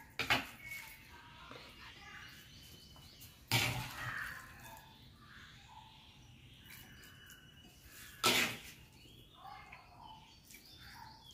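Wooden spoon scraping and knocking in a clay pot as mashed green gram is scooped out onto ceramic plates, with three sharp knocks: just after the start, about 3.5 seconds in, and about 8 seconds in. Birds chirp faintly in the background.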